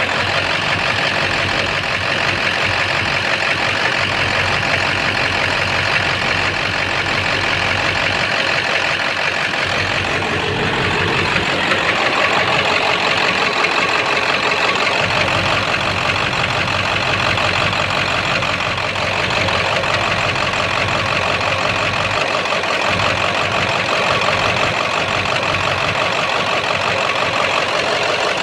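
7.3-litre V8 diesel engine idling steadily with a knock and a rough idle, a fault the owner has not yet diagnosed.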